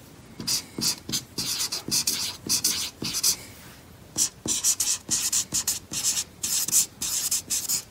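Black felt-tip marker squeaking and scratching on paper as words are hand-lettered in quick separate strokes. There is a short pause about three and a half seconds in, then more strokes.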